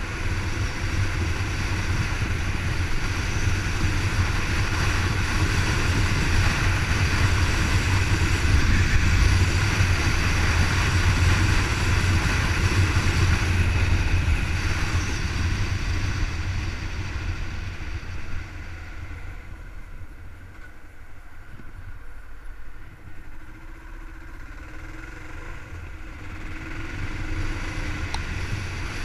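Kawasaki KLR650's single-cylinder four-stroke engine running at road speed. About two-thirds of the way through it goes noticeably quieter for several seconds, then picks up again near the end.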